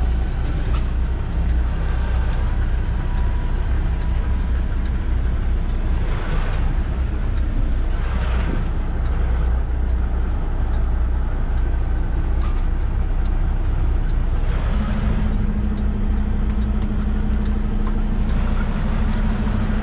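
Tractor-trailer's diesel engine running at low revs inside the cab while the rig reverses slowly. A few short hisses come over the rumble, and a steady low hum joins about three-quarters of the way through.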